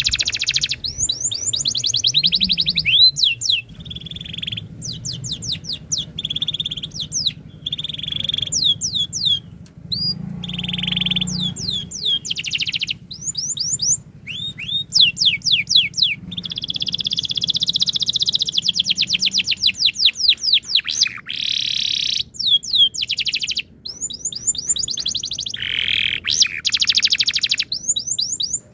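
Domestic canary singing a long, varied song: quick series of downward-sweeping chirps alternating with fast rolling trills, one trill held for several seconds in the middle, with short breaks between phrases.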